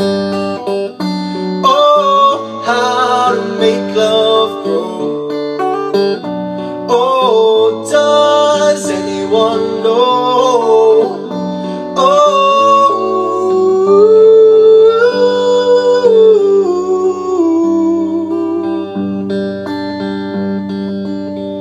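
Electric guitar playing an instrumental break between verses: a changing chord pattern with a sliding, wavering melody line over it.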